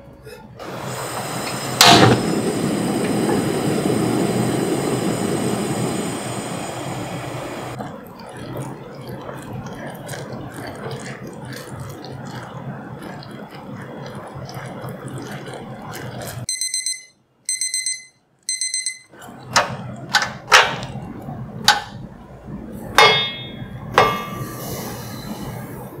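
Cooking at a white enamel saucepan on a tabletop gas burner: a sharp click about two seconds in, then a steady rushing noise for about six seconds that falls to a quieter steady hiss. Past the middle everything drops away while three short, high electronic beeps sound. Then comes a run of sharp taps and scrapes from the silicone spatula against the pot and a glass bowl.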